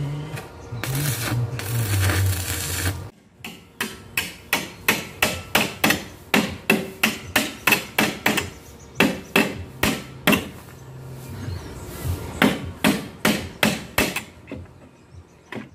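Small hammer striking a steel flat strip bracket on a plywood board in a steady run of sharp blows, about two to three a second, for some ten seconds. The blows follow about three seconds of steady noise.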